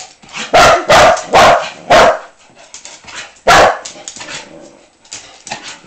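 A dog barking loudly: four quick barks, then one more about a second and a half later.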